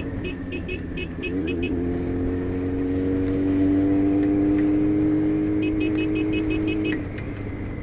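Honda CBX 750's inline-four engine pulling under throttle, its pitch rising slowly for several seconds and then dropping about seven seconds in as the throttle is eased. Steady wind noise runs underneath. Runs of rapid, sharp high ticks come near the start and again just before the drop.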